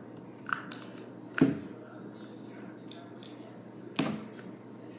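Objects being handled: a small click about half a second in, then two sharp knocks, about a second and a half in and about four seconds in, each ringing briefly, over a low steady hum.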